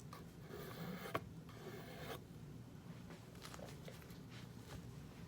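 A few faint scraping strokes of a pocket knife blade pushed across an oil sharpening stone, with a small click about a second in.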